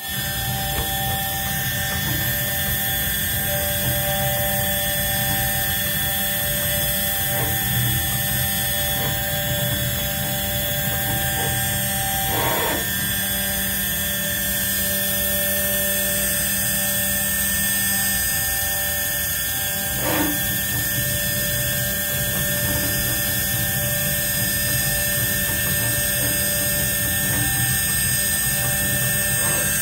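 CNC engraving machine running steadily as it cuts: a constant spindle whine with several high tones over a low rumble, with two brief sharper ticks about twelve and twenty seconds in.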